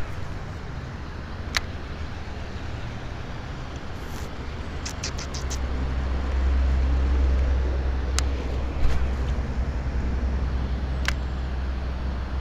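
Steady low outdoor rumble that swells for a few seconds midway, the way a passing vehicle does, broken by a handful of sharp clicks, including a quick run of four or five.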